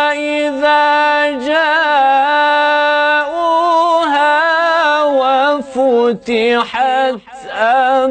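A man's solo voice reciting the Quran in melodic tajweed chant, unaccompanied. He holds a long, steady note at first, then draws out the words in winding, ornamented runs, with short breaks for breath near the end.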